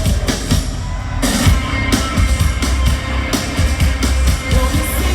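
Live band playing a song's instrumental intro through an arena sound system: drum kit with a heavy bass drum, bass and guitar, recorded from the crowd.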